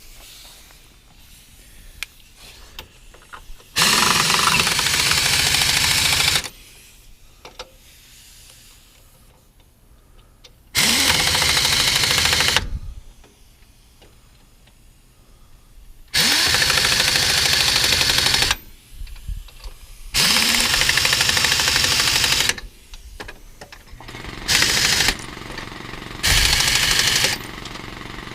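Power impact wrench run in repeated bursts of about two seconds, with short pauses between them, as it works bolts or studs on the engine.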